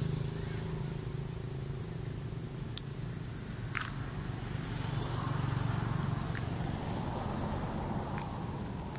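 Outdoor ambience: a steady low rumble, with a steady high hiss above it, and a few short sharp clicks or squeaks near the middle.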